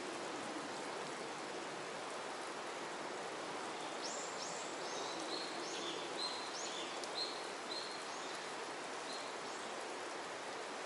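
Steady rush of running water, with a small bird calling in a quick series of short high chirps from about four seconds in until about eight seconds.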